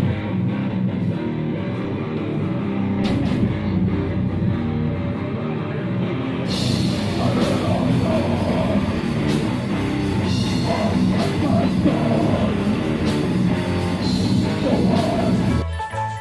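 Death metal band playing live: heavy guitar riffing over drums, growing brighter with cymbals about six and a half seconds in. Near the end it cuts off into a different, lighter piece of music.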